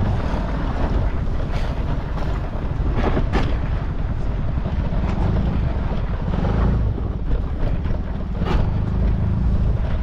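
Wind buffeting the microphone on a moving scooter, over a steady low rumble from the scooter's engine and the road, with a few short knocks.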